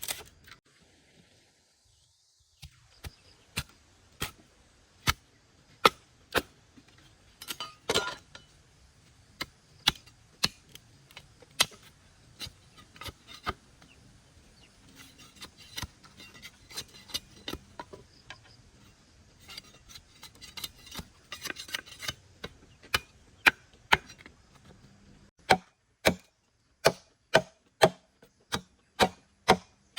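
Repeated chopping strokes of a blade on bamboo, irregular at first and then steady at about two blows a second near the end.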